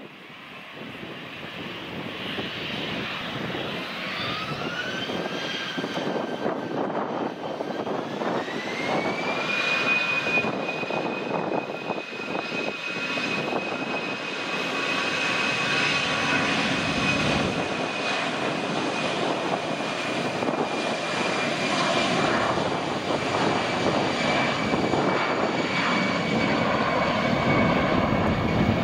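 Airbus A319 jet engines spooling up to takeoff thrust: a whine climbs in pitch from about four to ten seconds in, then holds steady over a rushing jet roar that grows louder as the airliner starts its takeoff roll.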